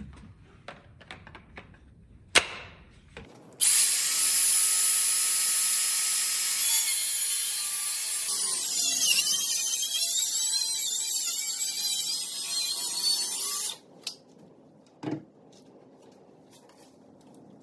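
Cordless circular saw ripping a board lengthwise: a steady high whine that starts about four seconds in, dips and wavers in pitch once the blade is deep in the wood, and cuts off sharply after about ten seconds. A few light handling clicks come before it and a single knock after it.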